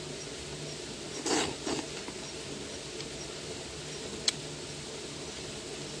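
Two short wet slurping mouth noises about a second in, as a piece of cooked squid is licked and sucked at to taste it. A faint steady background carries soft high ticks a few times a second, and there is a single sharp click a little past four seconds.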